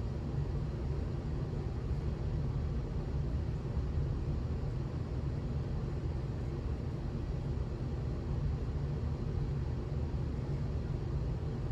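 Industrial ceiling fan spinning, a steady low rumble with air noise that holds even throughout.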